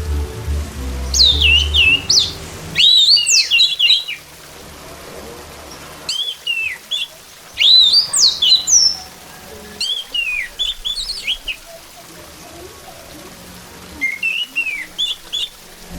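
Orange-headed thrush singing in four separate phrases of quick, varied whistled notes, with pauses of a second or two between them. A low hum sits under the first two seconds.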